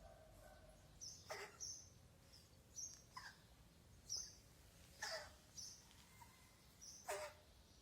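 A cat coughing in short hacks, four times at about two-second intervals, with small birds chirping between the coughs.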